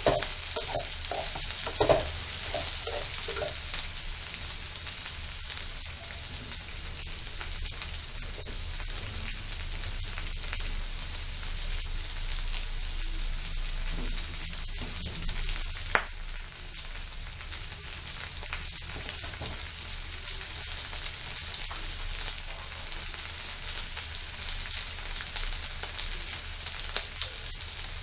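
Chopped onions, green chillies, garlic and ginger sizzling steadily in hot oil in a metal kadhai as they are sautéed. A wooden spatula scrapes the pan in a quick run of strokes in the first few seconds, and knocks against it once about halfway.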